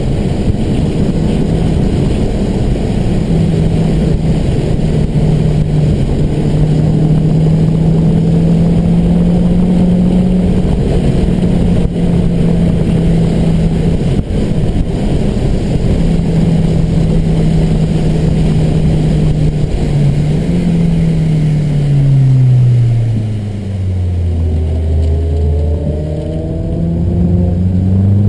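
Mazdaspeed3's turbocharged 2.3-litre four-cylinder heard from inside the cabin, held at steady high revs with a few brief breaks, then falling steeply about three-quarters of the way through as the car slows for a corner and climbing again near the end as it accelerates out. Under it runs a steady hiss of tyres on the wet track.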